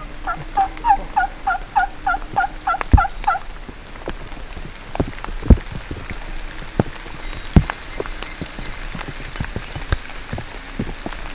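A run of about fourteen evenly spaced turkey yelps over about three seconds, each note dropping in pitch. After that, rain dripping, with scattered single drops tapping close by.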